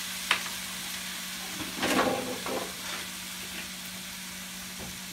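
Freshly added diced raw potatoes frying in hot oil in a pan, a steady sizzle. A sharp click comes early and a louder clatter about two seconds in, with a couple of lighter knocks after it.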